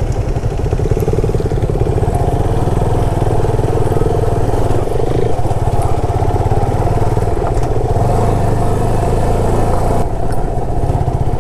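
Motorcycle engine running steadily while being ridden along a rough off-road track.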